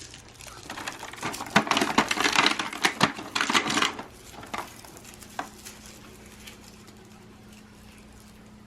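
Small plastic toy packaging and pieces being handled and opened, a busy clatter and crinkle for about three seconds, then a few light clicks over a faint steady hum.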